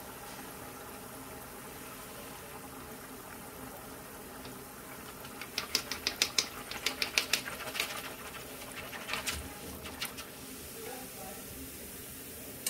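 Batter on a wire mold deep-frying in a wok of hot oil, a steady sizzle. About five seconds in comes a quick run of sharp metal clicks and taps lasting several seconds as the mold is jiggled to free the stuck cake, then the sizzle alone again.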